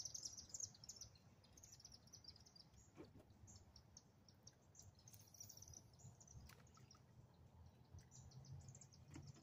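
Near silence: faint groups of short, high chirps from evening insects and birds over a low, steady background rumble.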